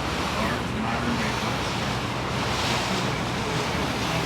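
Steady wind and water rush on the deck of a moving riverboat, with a low engine drone underneath.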